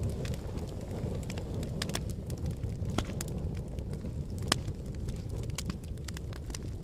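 Fire crackling: a steady low rumble with frequent sharp pops and snaps, the loudest pop about four and a half seconds in.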